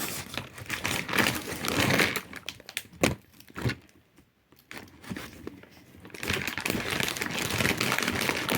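Crinkling and rustling of handled paper or packaging pieces, with two sharp clicks about three seconds in, a short near-quiet pause, then steady rustling again from about six seconds in.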